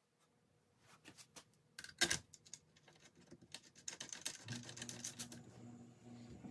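Light clicks and rattles of a thin wood-strip lampshade being handled and fitted onto a lamp's wire harp. A low steady hum comes in a little past halfway.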